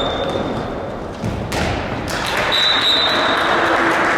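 Handball play echoing in a sports hall: the ball bouncing, with a sharp thud about a second and a half in and thin high squeaks.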